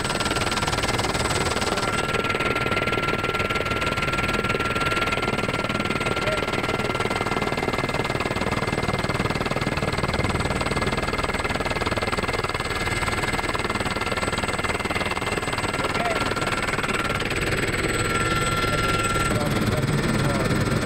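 Steady cabin noise of an Aérospatiale Gazelle helicopter in flight: the Astazou turbine and rotor running, a dense rumble with thin steady high-pitched whine tones over it.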